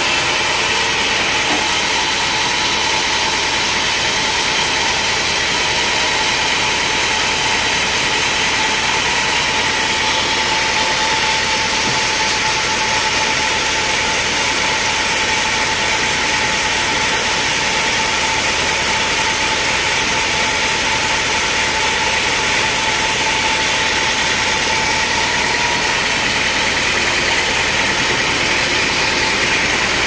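Band sawmill running between cuts, its motor and band blade turning freely without cutting wood: a loud, even mechanical noise with a faint steady whine that fades out about two-thirds of the way through.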